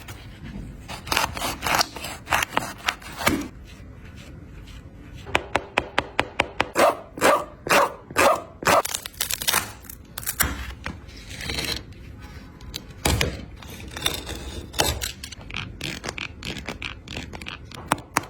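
Nike Kobe 11 Low basketball shoe being taken apart by hand: irregular knocks, clicks and scraping as its parts are cut and pried away.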